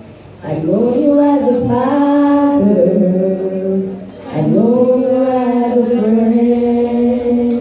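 Slow singing in two long phrases of drawn-out held notes, with a short break about four seconds in.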